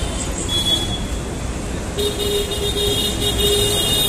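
Street traffic rumbling, with a vehicle horn held for about two seconds in the second half and a short toot about half a second in.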